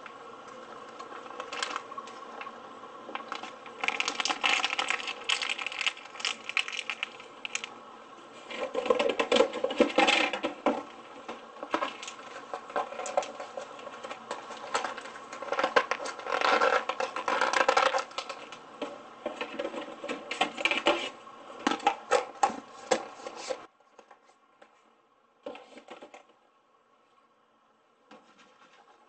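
Plastic bag of flour crinkling and rustling in bursts as it is squeezed and shaken over cubes of pork, over a steady hum. It stops abruptly about 24 seconds in, leaving only a few faint clicks.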